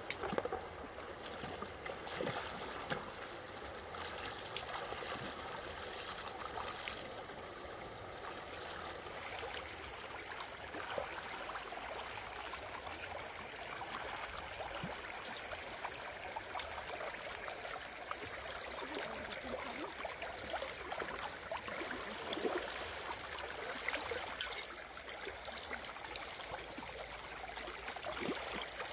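Shallow river running and trickling over rocks, with small splashes from hands moving through the water.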